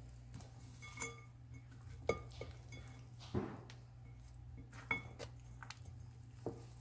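A spatula stirring chopped vegetables and beans in a ceramic mixing bowl. It makes about five separate clinks and knocks against the bowl, spaced a second or more apart.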